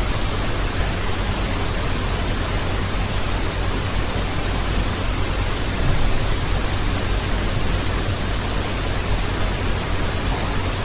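Steady hiss with a low electrical hum underneath: the background noise floor of the recording, with no other sound.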